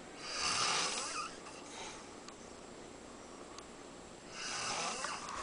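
A sleeping man snoring: two snores about four seconds apart, each lasting about a second.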